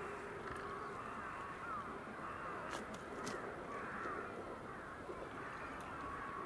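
A large flock of birds calling, many overlapping calls running together into a steady chorus, with two sharp clicks about three seconds in.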